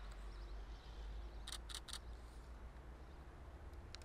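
Faint outdoor background with a steady low rumble, and three short, sharp high-pitched clicks in quick succession about a second and a half in.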